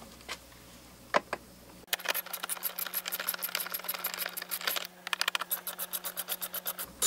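Hand ratchet wrench clicking rapidly while backing out a door trim panel bolt, in two runs with a short break between them.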